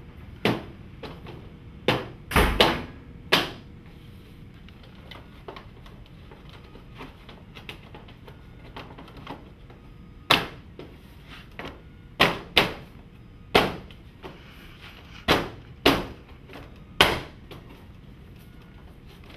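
About a dozen sharp, sudden knocks in irregular groups as stone veneer panels are fixed to a sheathed wall.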